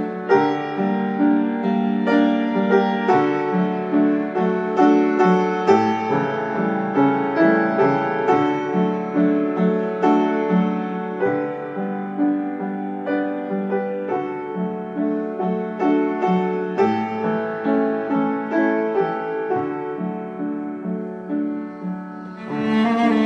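Background piano music, a melody of separate notes over chords.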